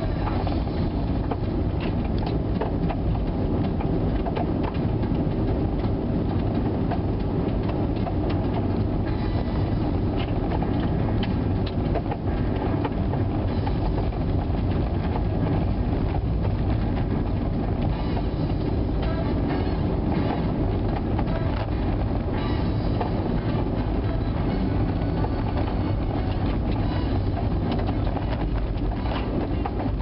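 A car driving, heard from inside the cabin: a steady low rumble of tyres on the road and the engine running, with small rattles and ticks throughout.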